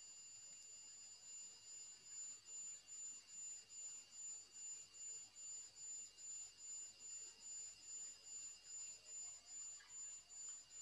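Near silence with faint, steady, high-pitched tones; from about a second in, the highest one beeps about twice a second.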